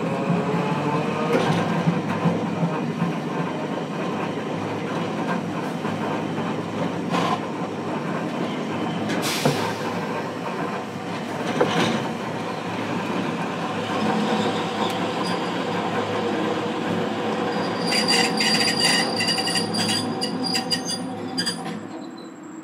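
Hiroden 700-series tram running, heard from inside the car. Its motor whine rises in pitch as it gathers speed at the start, then runs steadily with a few sharp clanks from the rails. About four seconds before the end come high wheel squeal and crackling, and then the sound falls away as the tram slows.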